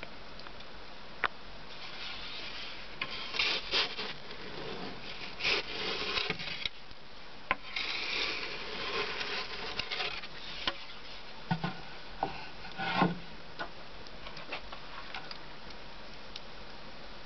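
A wooden pizza peel scrapes and slides over the brick floor of a wood-fired oven in a series of rough strokes, with sharp clicks between them. A few knocks come near the middle, and it ends in scattered faint clicks.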